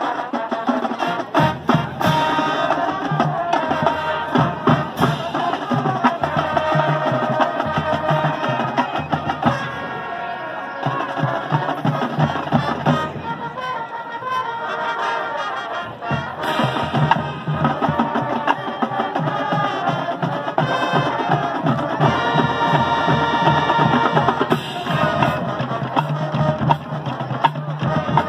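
High school marching band playing its field show: brass over marching drums and percussion keeping a steady beat.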